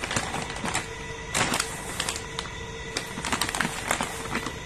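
Plastic bag crinkling in a string of short, irregular crackles as a cat bites and paws at it.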